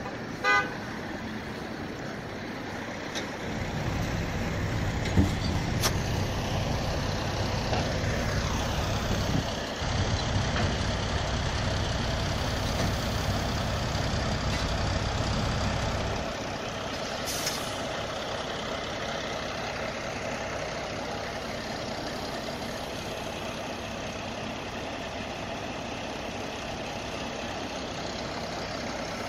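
Heavy truck engine running, louder from about four seconds in until about sixteen seconds, over steady outdoor street noise. There is a short pitched beep about half a second in, and a brief hiss of air from the brakes around the middle.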